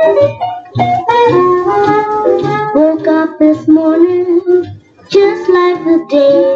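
A 1948 78 RPM shellac record of a late-1940s blues song playing on a turntable: continuous band music, with a short break a little before five seconds in.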